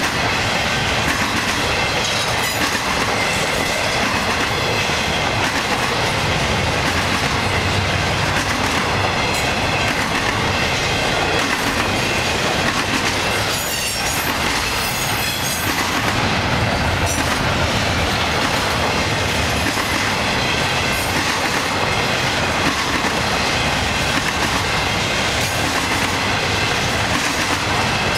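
A long intermodal freight train's container-laden well cars roll past close by, with a loud, steady noise of wheels on rails that does not let up.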